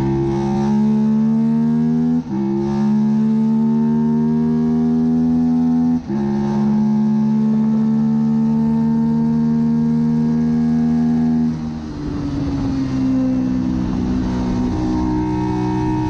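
Suzuki SV650's 90-degree V-twin running hard at racing speed, its note climbing slowly, with brief cuts about two and six seconds in as it changes up a gear. About twelve seconds in the throttle closes, the note drops and turns rougher, then settles into a steady pitch again.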